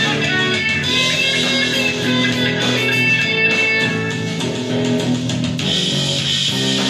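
Les Paul-style electric guitar strumming chords that ring out and change every second or two.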